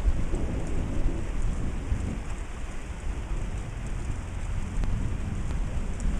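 Rain falling steadily, with a low, uneven rumble underneath.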